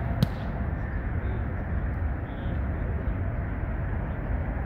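Steady outdoor rumble of traffic and wind, with one sharp smack about a quarter second in, a volleyball being struck by hand.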